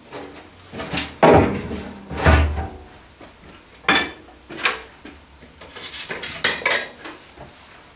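Metal tools and parts being handled on a workbench: irregular clinks and knocks, with two heavier thuds in the first two and a half seconds and a quick cluster of clinks near the end.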